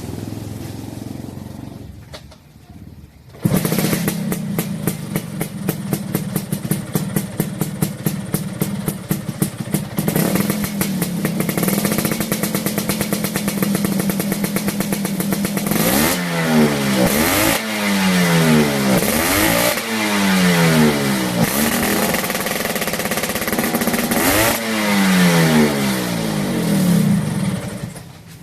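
Vespa scooter's engine through an aftermarket DRC left-exit exhaust with a big silencer: it comes in suddenly about three seconds in and idles with a fast, even beat. From about halfway it is blipped several times, each rev rising sharply and falling back.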